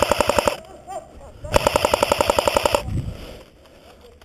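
Cyma AK74M airsoft electric gun firing on full auto: the tail of one rapid burst, then a second burst of just over a second starting about one and a half seconds in.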